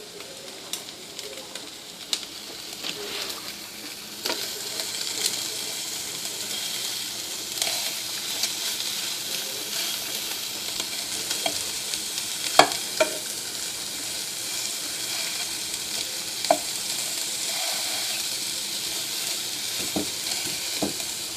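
Chicken frying in a hot pan, a steady sizzle that grows louder a few seconds in as it browns, with a few sharp clicks of a utensil against the pan.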